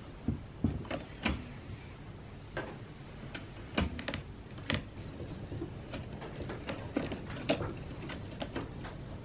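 Manual 1950s Olympia Deluxe typewriter clacking as its keys and typebars are worked one at a time: about fifteen sharp clicks at an uneven pace. Its mechanism is stiff and still needs a lot of oiling.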